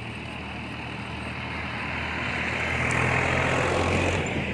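A motor vehicle's engine running as it passes, growing louder to a peak about three to four seconds in, then fading.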